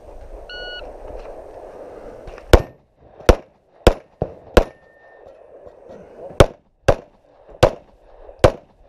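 Electronic shot timer beep about half a second in, then nine handgun shots fired in a stage run: quick shots about half a second apart, a pause of nearly two seconds, then four more.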